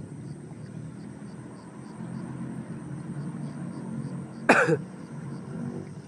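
A single short cough from a person about four and a half seconds in, the loudest sound, over a steady low rumble.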